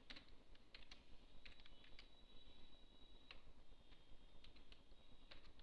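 Faint keystrokes on a computer keyboard: scattered single taps and short quick runs at irregular intervals as text is typed.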